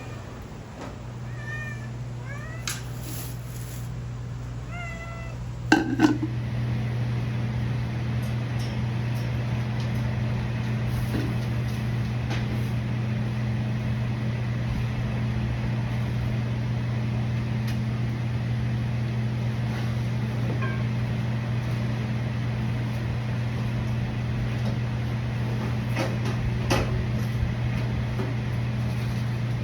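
A dog whining in several short, high-pitched calls over the first five seconds. A sharp knock follows at about six seconds, and then a steady low hum with a few faint clicks.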